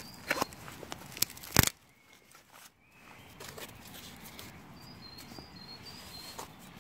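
A few sharp knocks and clicks, the loudest about one and a half seconds in, then quiet woodland with a small bird singing short, high, repeated notes near the end.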